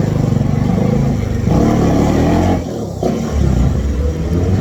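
Bajaj Dominar 400 UG motorcycle's single-cylinder engine running and revving, with the revs rising, a brief drop about halfway through as the throttle comes off, then picking up again.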